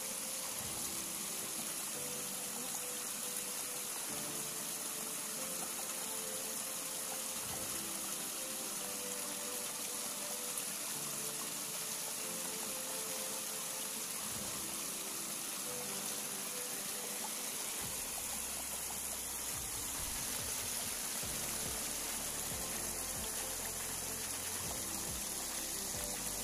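Small stream waterfall splashing steadily over rocks, with soft background music of held notes; a deeper bass part joins in the second half.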